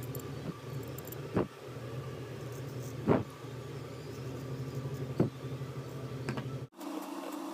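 Three short scrapes of a steel needle tool scoring lines into soft carved stone, over a steady low hum; the hum stops abruptly near the end.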